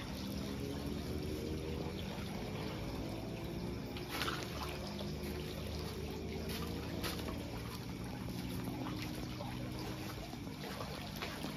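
Steady trickle of running water, with a steady low hum beneath it and a few sharp clicks, the loudest about four seconds in.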